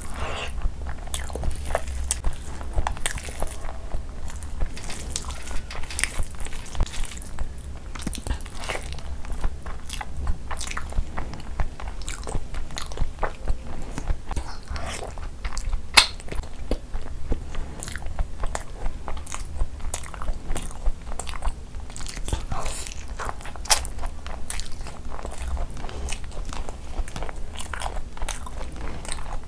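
Close-miked chewing and wet mouth sounds of a person eating rice khichdi and curried eggs by hand, full of irregular sharp clicks and crackles. The loudest crunchy bite comes about 16 seconds in. A steady low hum runs underneath.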